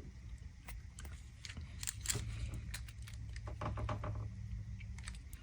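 Faint, scattered small plastic clicks and taps from handling a plastic ignition coil wiring connector as its back piece is worked loose and pulled out.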